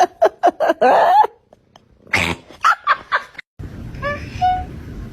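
A cat making quick runs of short, sharp vocal sounds, a brief pause between two runs. After a cut about three and a half seconds in, a cat gives a short meow that rises in pitch.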